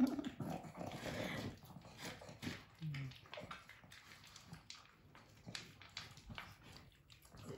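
Two dogs, a pug and a small long-haired dog, eating dry kibble from plastic bowls: irregular crunching and clicking as they chew and their mouths knock the bowls.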